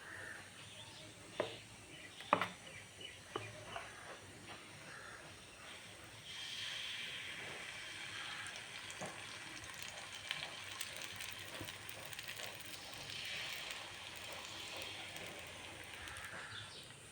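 Food sizzling as it fries in hot oil, a steady hiss that grows stronger about six seconds in, with a few sharp clicks and knocks about one and a half and two and a half seconds in.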